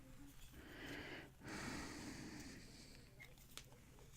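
Faint breathing close to the microphone: two soft, drawn-out breaths, then a few faint ticks near the end.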